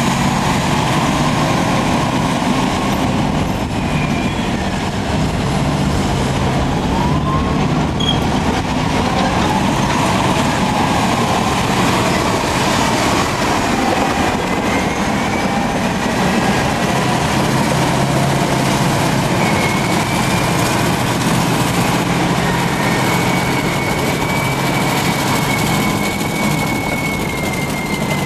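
Caterpillar D10N crawler dozer's V12 diesel engine running steadily under load, with thin squeals that rise and fall from its steel track undercarriage.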